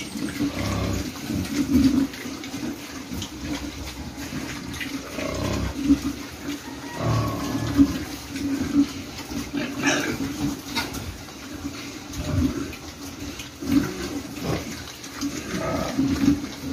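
A group of young grower-stage pigs eating dry feed together at a trough: continuous uneven chomping and smacking mixed with short low grunts.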